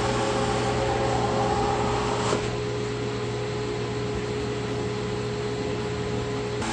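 Harbor Freight 2-horsepower dust collector with its stock 10-inch forward-vane impeller running steadily, a steady hum under the rush of air at the open hose port. About two seconds in a board is tapped over the port to seal it for a suction reading, and the sound drops a little.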